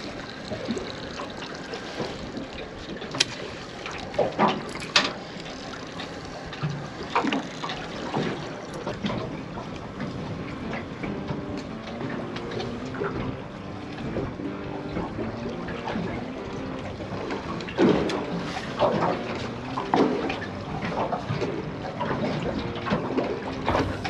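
Sea water lapping and slapping against the hull of a drifting boat, a steady wash of small waves. Scattered sharp knocks and slaps stand out, several a few seconds in and again near the end.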